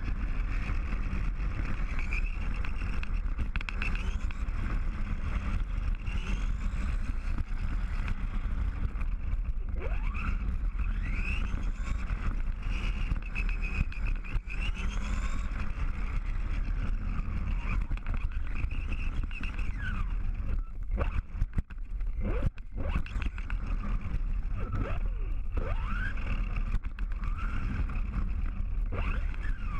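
RC car heard from a camera mounted on it: the motor whines up and down in pitch with the throttle, with several quick rising sweeps, over a heavy rumble of tyres and vibration on the pavement. The sound briefly drops out and breaks up about two-thirds of the way through.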